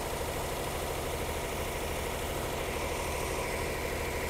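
1957 Ford Thunderbird's 312 Y-block V8 idling steadily with a fast, even pulse. Its ignition timing is set well retarded, as the timing light shows.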